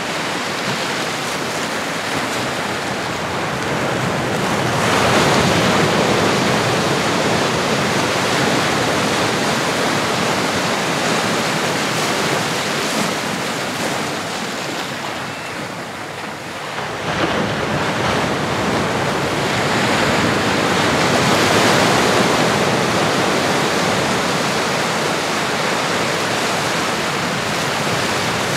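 Ocean surf: waves washing in and drawing back as a steady rush, swelling louder about five seconds in and again past twenty seconds, with a brief lull between.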